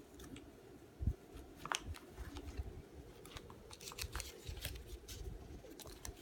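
Paper dollar bills rustling and crinkling in short, irregular crackles as kittens paw at them and a hand moves them, with a few soft thumps.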